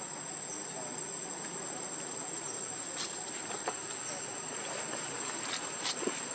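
Insects trilling in one steady, high, unbroken tone, with a few faint rustles and clicks, the sound of animals shifting on dry leaves.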